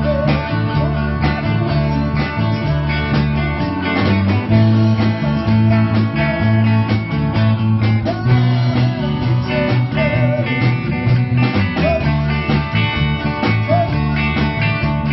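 Live rock band playing: strummed acoustic guitar and electric guitars over a drum kit keeping a steady beat, with a melody line bending in pitch in the second half.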